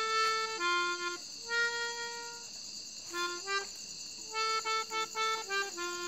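Melodica playing a slow single-line melody, mixing held notes with short repeated ones, in a reedy, accordion-like tone.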